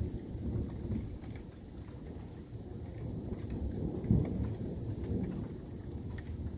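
Thunder rumbling continuously from a very active night thunderstorm, swelling to a louder rumble about four seconds in, with rain ticking lightly over it.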